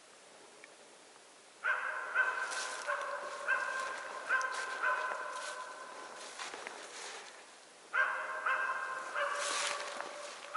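Hunting laika (West Siberian Laika) barking repeatedly: a run of barks about every half second to second, a short lull, then another run starting about eight seconds in.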